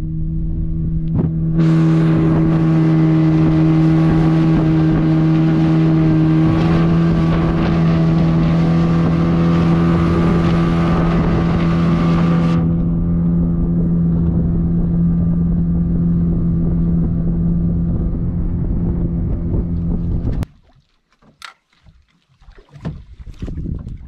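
Motorboat engine running steadily at speed, a constant hum over the noise of wind and rushing water. It cuts off suddenly about twenty seconds in, leaving faint water sounds and a few small knocks.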